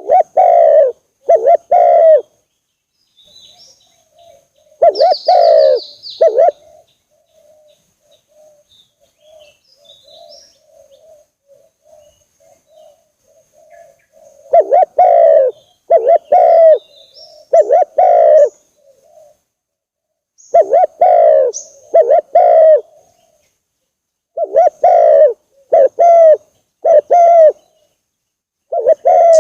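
Spotted doves cooing: loud phrases of two to four low coos, repeated every few seconds. In a pause near the middle a fainter, quicker run of coos carries on, and small birds chirp faintly high above.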